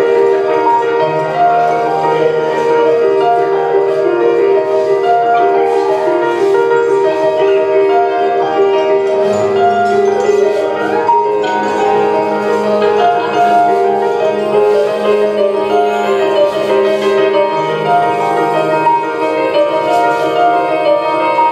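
Instrumental music with a mallet-percussion melody over held low notes. The low notes shift about nine seconds in and again near the end.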